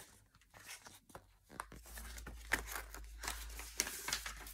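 Pages of a paperback picture book being handled and turned by hand: a run of short, soft paper rustles and crinkles that grows busier about a second and a half in.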